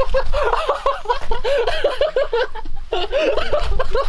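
A person laughing hard in quick, high-pitched ha-ha-ha pulses, about five a second, in two long runs with a short breath between them.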